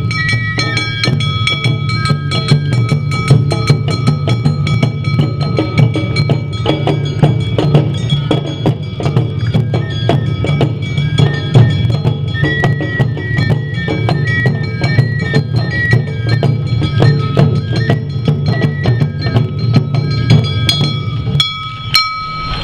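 Awa Odori accompaniment music: a fast, steady beat of taiko drums and a clanging kane gong, with a shinobue bamboo flute holding high notes and playing a stepping melody partway through.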